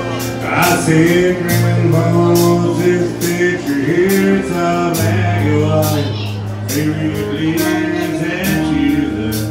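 Live country band music: a male voice singing over acoustic and electric guitars, bass and a steady drum beat.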